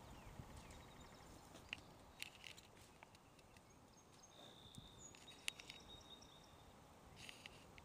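Near silence: faint outdoor ambience with a few faint high chirps and scattered soft clicks.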